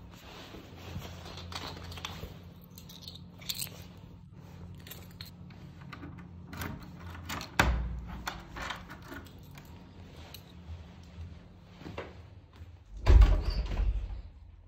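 Footsteps and keys jangling, then a key worked in a wooden door's lock with clicks and rattles of the metal lever handle. A sharp knock comes about halfway through, and the loudest sound, a low thump with rattling, comes near the end as the door is pushed open.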